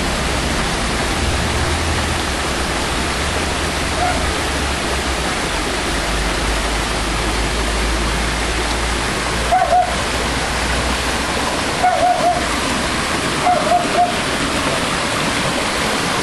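Small rocky mountain stream running fast over boulders: a loud, steady rush of water. A few short high chirps come through it in the second half.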